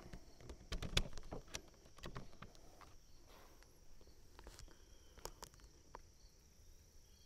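A few light clicks and knocks as the air rifle is handled and settled on the rest, mostly in the first second and a half, over a faint, steady, high insect drone.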